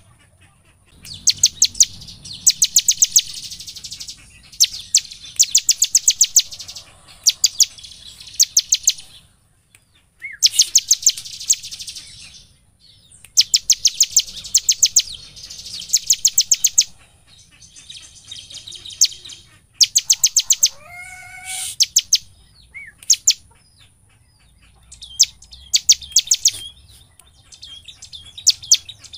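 A bar-winged prinia (ciblek) in full song. It repeats bouts of rapid, sharp, high chipping notes, about ten a second, each bout lasting one to two seconds with short pauses between.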